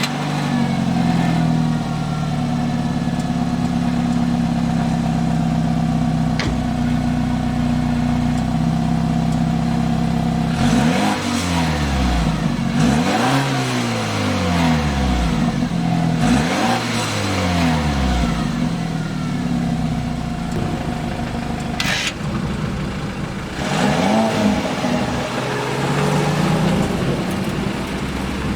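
BMW F30 on its factory exhaust, warm, idling steadily, then revved in several quick throttle blips about ten seconds in, each rising and falling back to idle, with a sharp click and one more rev later on.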